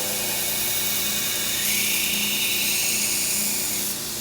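Knife belt sander running, with the forged steel tip of a screwdriver ground against the belt. The grinding hiss grows louder about two seconds in and eases off near the end.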